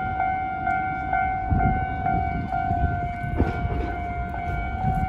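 Japanese railway level-crossing warning bell ringing: an electronic clanging tone that repeats at a steady beat, warning of an approaching train. Low road and rail rumble lies underneath.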